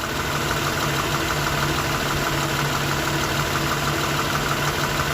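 Lexus six-cylinder engine idling with a misfire, running rough enough to shake the car.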